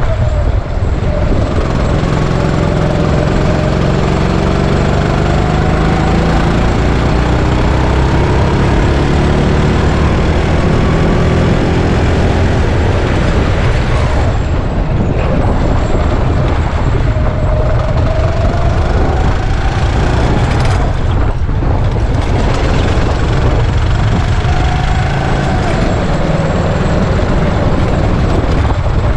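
Go-kart engine running hard, its pitch climbing and dropping again several times as it accelerates and lifts off, over a heavy low rumble.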